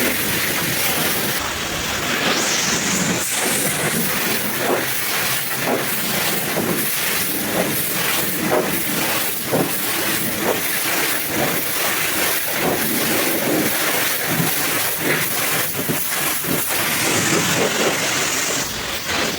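High-pressure washer spraying water onto a truck: a steady hiss of spray with rapid, irregular spatter as the jet strikes the bodywork.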